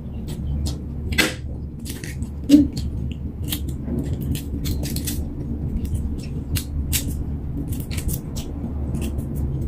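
Shell of a boiled duck egg (balut) being cracked and peeled by hand: a run of small crackling clicks, with two louder cracks in the first few seconds.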